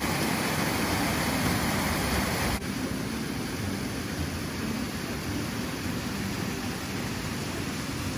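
Steady rushing noise of a fast rocky stream, with wind buffeting the microphone. It drops a little, suddenly, about two and a half seconds in.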